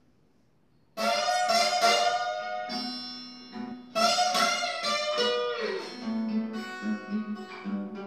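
Acoustic guitar playing a slow blues. A chord is struck about a second in and again about four seconds in, each left ringing. Between them a note glides down in pitch, then quieter picked notes follow over a steady low bass note.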